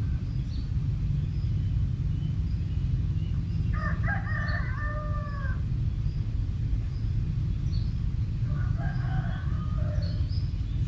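A loud drawn-out bird call about four seconds in, lasting about two seconds and dropping in pitch at its end, and a shorter similar call around nine seconds. Faint high chirps are scattered throughout over a steady low rumble.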